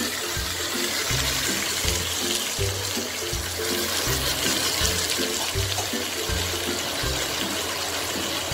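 Background music with a stepping bass line over a steady hiss of sliced beef sizzling in a wok as it is stir-fried.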